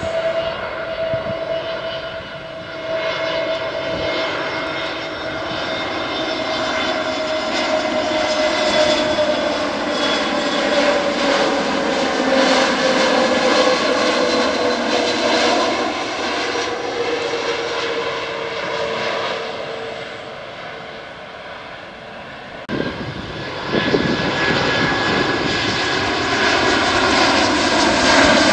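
Jet engines of a Citilink Airbus A320-family airliner on landing approach passing low overhead, a steady whine whose tone slowly falls in pitch as it goes by. About 23 seconds in it changes abruptly to a second airliner on approach, a Lion Air Boeing 737-900ER with CFM56 engines, its whine louder and steadier.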